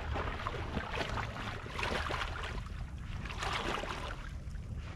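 Water sloshing and splashing in uneven bursts over a steady low rumble.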